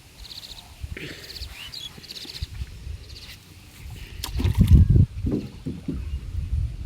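Small rowing boat on a windy river: wind rumbling on the microphone, with a cluster of knocks and thumps about four to five seconds in, the loudest part.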